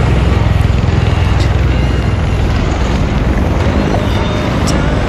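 Formation of Marine Corps MV-22 Osprey tiltrotors flying past overhead: a loud, deep, steady rotor drone with rapid blade chop.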